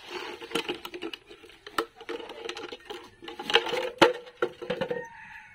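Plastic crinkling and a run of sharp clicks and knocks as a hand handles a plastic container wired to a wooden post, with the sharpest knock about four seconds in.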